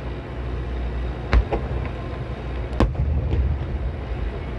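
Fireworks going off: two sharp booms about a second and a half apart, each followed by a fainter pop, over a steady low rumble.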